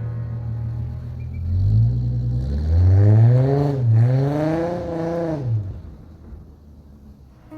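Car engine running steadily, then revving up twice, the pitch rising and falling, before dropping away and fading.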